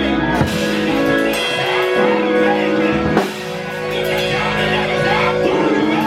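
Live church band music with guitar and drums, with voices singing along.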